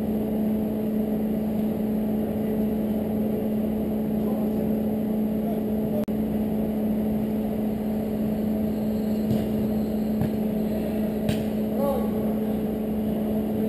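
Steady mechanical hum with a constant low tone, with a few short sharp knocks about nine to twelve seconds in.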